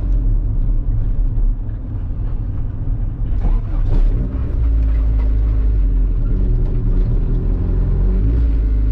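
Honda D-series four-cylinder engine pulling a Civic along the road with a steady low rumble. It eases off from about a second and a half in, with a few rattles near four seconds, then pulls steadily again from about five seconds in.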